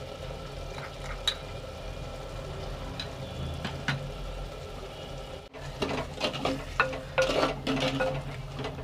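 Onion-and-spice masala frying gently in oil in a clay handi, with a few light clicks of a spoon against the pot. About six seconds in, the spoon starts scraping and stirring the masala more busily.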